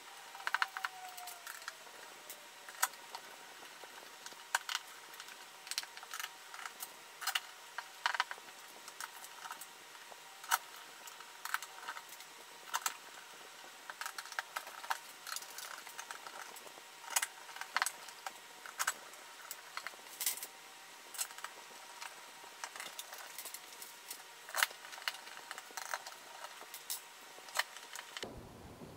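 Hand screwdriver turning screws into a 360 mm radiator and its fan frame: irregular small clicks and metallic ticks throughout, from the driver tip and screw threads.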